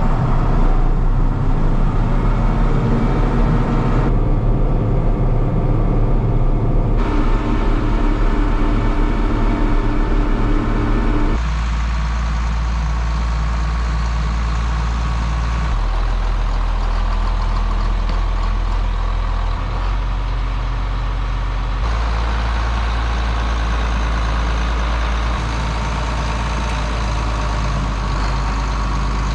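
John Deere 4440 tractor's six-cylinder turbocharged diesel engine running steadily while driving on the road, in several spliced stretches whose tone changes suddenly at each cut.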